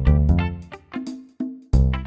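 Background music: plucked guitar and bass notes in a bouncing rhythm, with a brief stop about one and a half seconds in.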